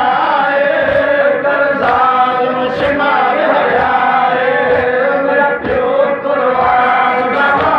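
A crowd of men chanting a Shia mourning lament (noha) together in unison, led by one loud voice, with occasional slaps of hands on chests (matam).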